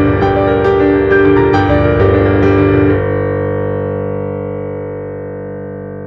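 Piano music with notes struck in quick succession, ending about three seconds in on a held chord that slowly fades away.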